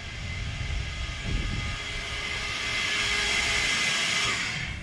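A hiss that builds over about three seconds and cuts off suddenly near the end, over a low rumble.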